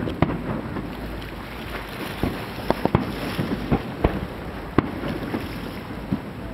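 Aerial fireworks shells bursting over the ocean: a string of sharp bangs, several close together around three seconds in, the loudest near five seconds. A steady rush of wind on the microphone runs underneath.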